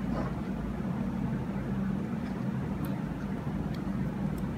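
Steady low hum, with a few faint light clicks in the second half.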